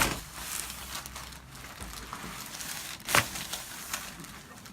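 Two sharp cracks during a chiropractic adjustment, the louder about three seconds in, over a soft rustling, with a few smaller ticks.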